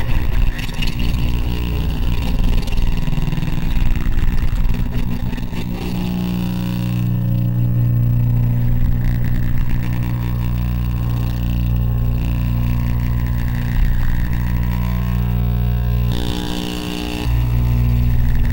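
Improvised electronic noise music: a loud, steady low drone with crackle and hiss on top. About sixteen seconds in, the drone drops out briefly under a hissing band, then returns.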